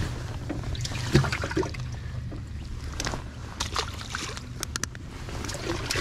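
Handling noises on a fishing boat: scattered knocks and clicks with water trickling and sloshing over a steady low rumble, with a quick cluster of clicks about four to five seconds in.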